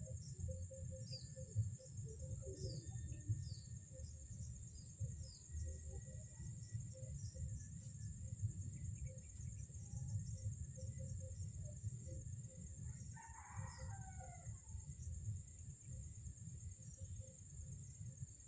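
A rooster crows once, about thirteen seconds in, over a steady high whine and a low rumble, with small bird chirps in the first few seconds.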